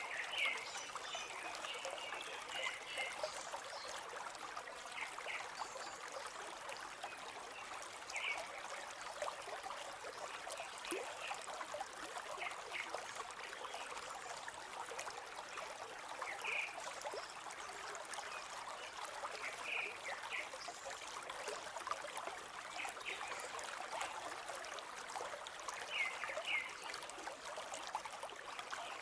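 A river running steadily over its bed, a continuous rushing trickle, with short high-pitched sounds every few seconds.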